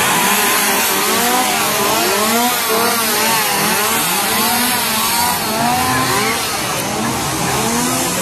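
Several two-stroke chainsaws revving up and down over and over, their engine notes overlapping in repeated rising and falling swoops.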